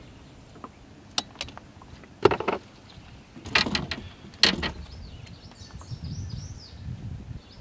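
Knocks and rattles of a landing net and a large flathead catfish being handled on a boat deck as the fish is lifted out of the net. There are several separate knocks, the loudest a little over two seconds in.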